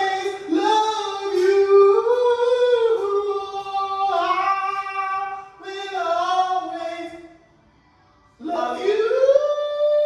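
A person singing in long, drawn-out high notes with slow bends in pitch; it breaks off briefly near eight seconds, then comes back with a note that slides up and is held.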